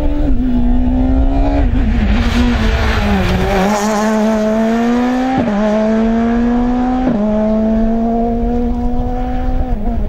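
Škoda Fabia rally car's engine at full throttle, its pitch climbing through the gears. After a brief lift around three seconds in it accelerates hard again, with two sharp upshifts about five and seven seconds in.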